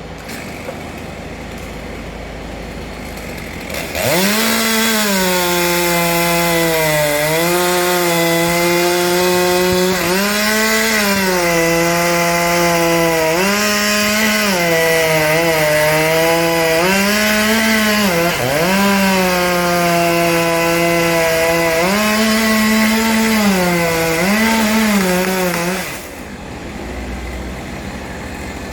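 Petrol chainsaw cutting a tree for about twenty seconds, starting about four seconds in and stopping near the end. Its pitch repeatedly rises as it revs and drops back as the chain bites into the wood.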